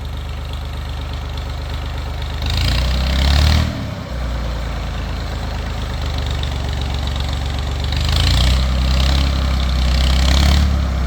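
Tractor engine running at idle and revved up twice, briefly about two and a half seconds in and again for about three seconds near the end, as the driver works the throttle and gears trying to back it up.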